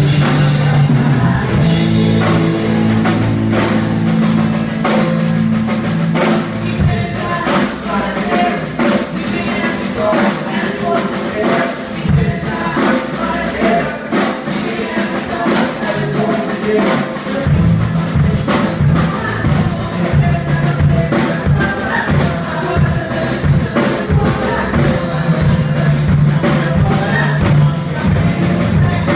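A worship band playing, with drum kit and bass guitar. The bass drops out for several seconds in the middle while the drums keep going, then comes back in.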